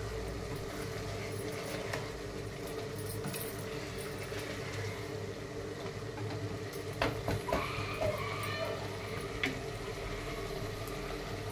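Plastic ladle stirring chicken pieces in masala in a pressure-cooker pot, with a few sharp knocks about seven seconds in and one more a couple of seconds later, over a steady low hum.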